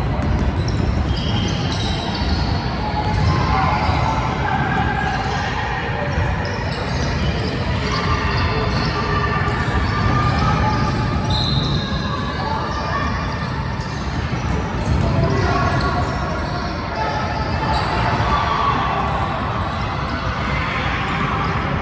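Basketball game in a gym: the ball dribbling on the hardwood floor, with players' and spectators' voices echoing in the hall.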